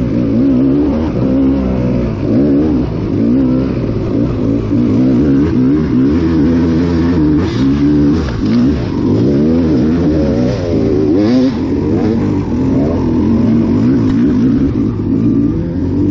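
Kawasaki KX250XC two-stroke dirt bike engine under constant throttle changes, its pitch rising and falling as it revs up and eases off over rough ground.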